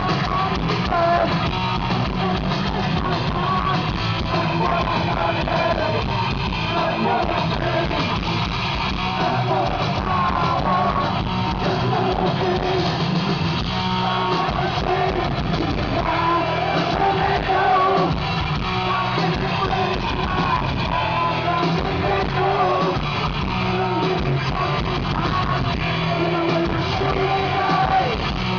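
Heavy metal band playing live through a stadium PA: distorted electric guitars, bass and drums, with singing over them, recorded from within the crowd.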